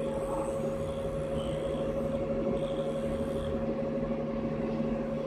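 CNC milling machine running with its spindle turning and not cutting: a steady hum with a steady whine.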